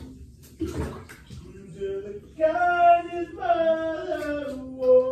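Water poured from a cup into a bathtub splashes briefly, under a second in. From about halfway through, a young child's voice makes long, wordless, sing-song notes that slide downward; this is the loudest sound.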